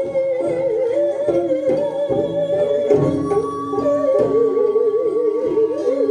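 Korean traditional music for hallyangmu dance: a single melody line with wide vibrato and sliding notes over steady drum strokes.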